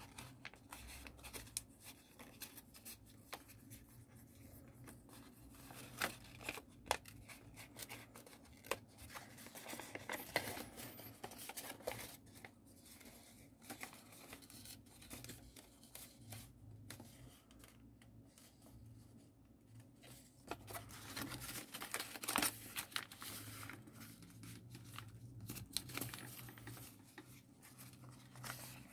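Folded origami paper crinkling and rustling as it is pinched, creased and pressed by hand, in irregular scratchy clicks that come thicker in a few short spells.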